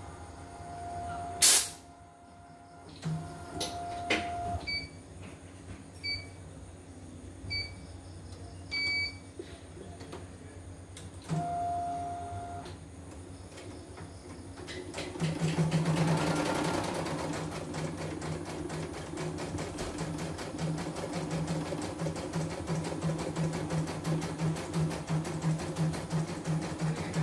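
Computerised embroidery machine on test: a click and a series of short electronic beeps from its controls, then about fifteen seconds in it starts stitching, a fast, even rattle of needle strokes over its motor hum.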